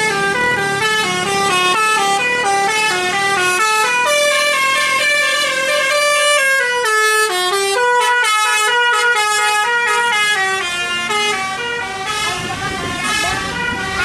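Tour bus's 'telolet basuri' musical horn playing a long tune of short stepping notes, several tones sounding together like a chord.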